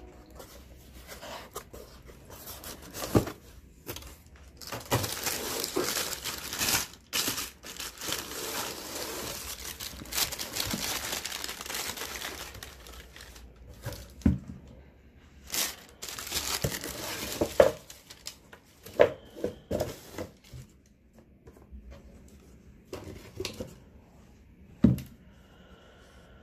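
Paper crinkling and rustling as shoes are lifted out of the wrapping paper in a cardboard shoebox, with several short sharp knocks of the box and shoes being handled.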